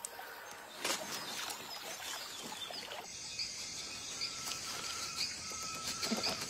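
Animated-film nature ambience: a soft even hiss, then about three seconds in a steady high insect chirring sets in, with scattered short bird chirps and a brief warbling trill over it.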